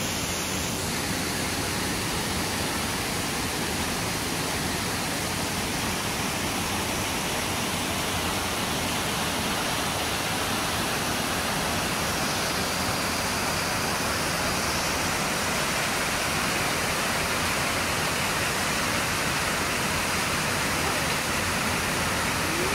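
Steady, unbroken rush of water falling over rocks, a waterfall or cascade on a mountain stream.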